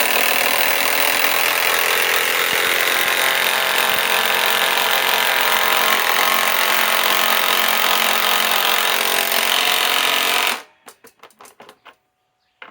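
Milwaukee M18 Fuel Gen 2 mid-torque cordless impact wrench hammering steadily as it drives a 5-inch lag bolt into wood, then stopping abruptly about ten and a half seconds in, followed by a few light clicks.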